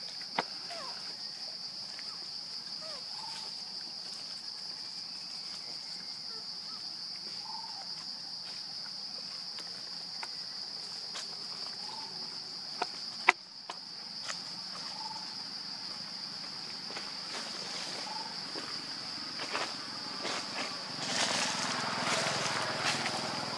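Steady high-pitched insect drone, like crickets or cicadas, with faint short calls every few seconds. A sharp click comes about 13 seconds in, and rustling near the end.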